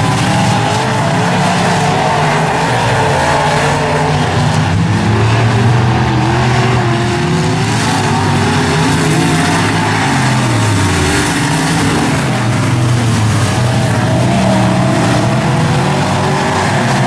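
A pack of dirt-track modified race cars racing around the oval, their engines at high power with pitch sliding up and down as the cars lap the track.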